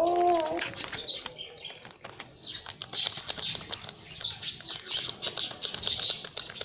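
Small birds chirping over and over in the background, with light crinkling and clicks from a paper spice sachet being torn open and shaken out over a pot.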